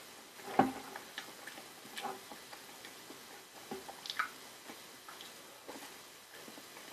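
Quiet eating sounds: a metal fork scooping soft baked sweet potato, with scattered small clicks and soft mouth and chewing sounds; the loudest click comes about half a second in.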